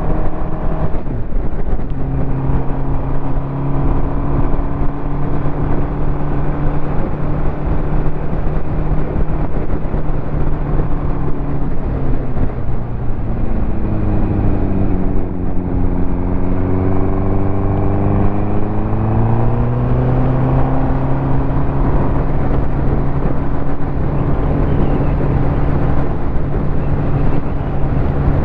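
Ducati motorcycle engine running under way, heard from on the bike with a haze of wind and road noise. The engine note changes about a second in and drops around twelve seconds in. It then climbs steadily for several seconds as the bike accelerates, and settles into a steady cruise.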